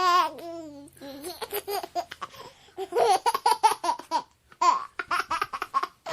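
Baby laughing in quick runs of short, high giggles, with brief pauses between fits and a high squeal trailing off at the start.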